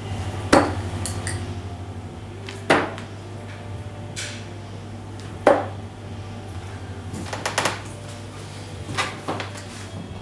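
Three darts striking a Unicorn dartboard one after another, each a sharp thud about two to three seconds apart, then a run of small clicks near the end as the darts are pulled out of the board. A steady low hum sits underneath throughout.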